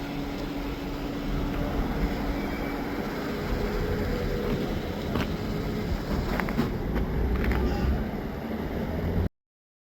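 Car running, heard from inside, an even low rumble with a few short clicks and knocks in the second half. The sound cuts off abruptly near the end.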